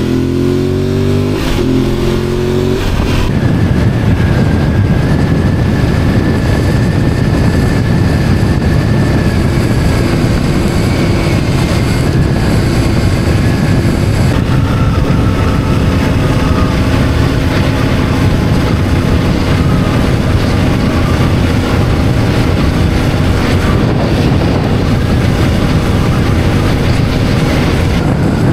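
Motorcycle under way: the engine revs up in steps through the gears in the first few seconds, then runs steadily at cruising speed under heavy wind rush.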